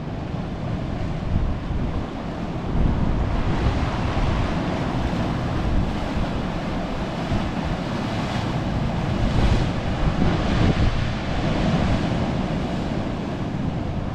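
Wind buffeting the microphone over the steady rush of ocean surf, swelling a few times.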